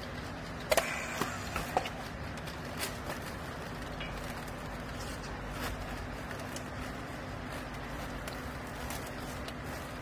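Steady machine hum with a cluster of sharp clicks about a second in and a few lighter ticks later, as a handheld battery strapping tool is worked on polypropylene strap around a pressed clothes bale.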